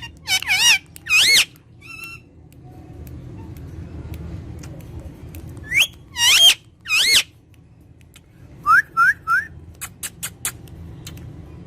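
Pet parrot making loud, wavering whistled calls in two bursts, then three short rising chirps, followed by a few sharp clicks.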